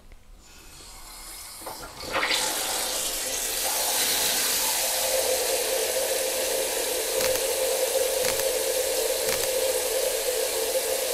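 Hand shower turned on about two seconds in, spraying into a plastic bucket of water: a steady rush of water with a steady tone in the plumbing under it. A few faint clicks near the end.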